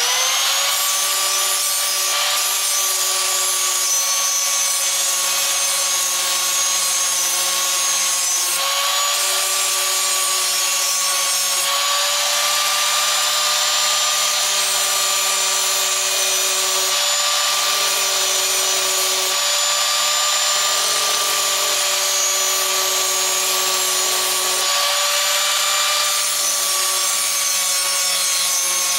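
Handheld electric angle grinder with a grinding wheel, grinding the cutting edge of a steel lawn mower blade to sharpen it. The motor spins up at the very start, then keeps up a steady whine over a grinding rasp, its pitch dipping slightly now and then as the wheel is pressed onto the blade.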